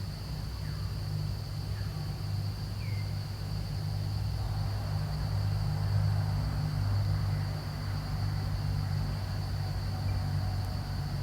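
Steady high-pitched insect drone, like cicadas or crickets, over a low steady hum, with a few faint short falling chirps in the first few seconds.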